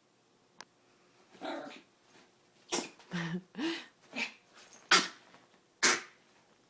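Yorkshire terrier sneezing and huffing from excitement: a string of short breathy bursts with a brief low grunt in the middle, then two sharp, loudest sneezes about a second apart near the end. The owner puts the excited sneezing down to the Yorkie's short respiratory tract.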